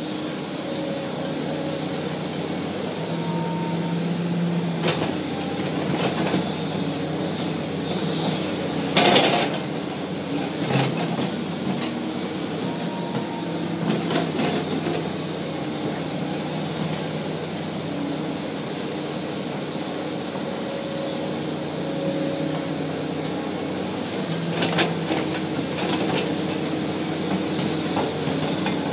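Komatsu PC400 hydraulic excavator running steadily while it digs and swings a load of dirt, its diesel engine and hydraulics humming with a few steady tones. A few short sharp knocks from the bucket and dirt break through, the loudest about nine seconds in.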